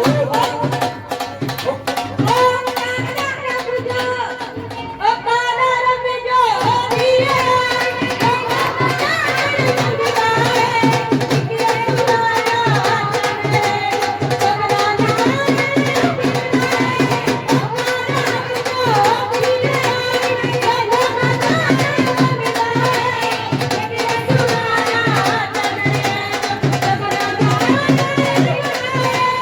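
Loud Indian devotional worship music with a steady, driving drum beat under a melody line.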